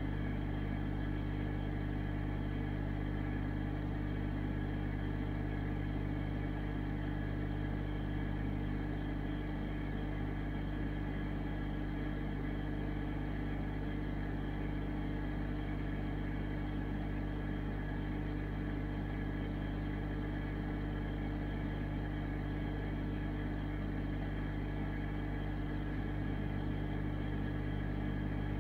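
Steady low hum and rumble of an aquarium filter running, with a constant drone that does not change.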